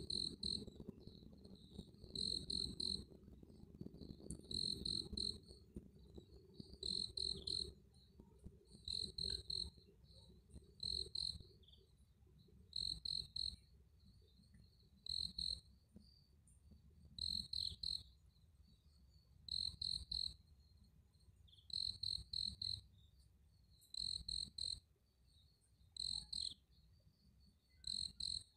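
A cricket chirping: short high-pitched chirps of two or three quick pulses each, one every second or two, over a low rumble that fades out about halfway through.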